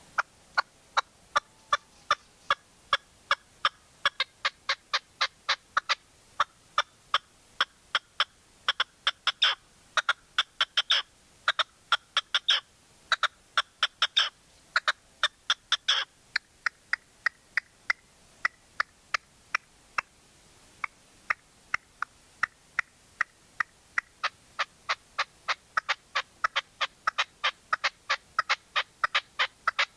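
Caged decoy red-legged partridge calling: a long run of short, sharp notes, about two to three a second. The notes are loudest around the middle and softer for a few seconds in the second half.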